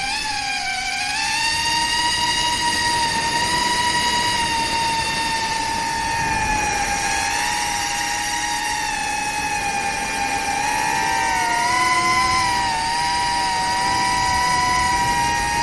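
FPV quadcopter's electric motors whining steadily, the pitch drifting gently up and down with throttle. It rises slightly and splits into two close tones about three-quarters of the way through.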